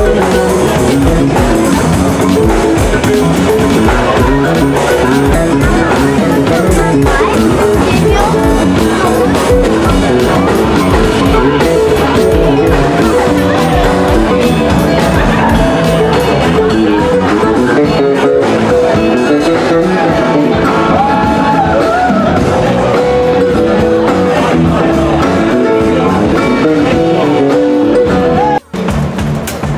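Band music with electric guitar, drum kit and singing. It cuts out for a moment near the end.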